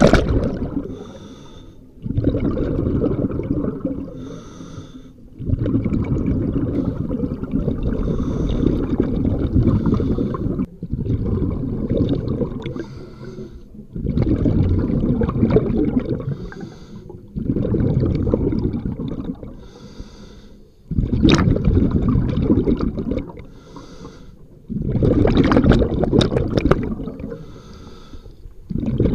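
A scuba diver's own breathing through the regulator, heard from a waterproof camera case on the mask strap: exhaled bubbles burble loudly for two to three seconds at a time, about every three to four seconds, between quieter inhalations with a faint hiss.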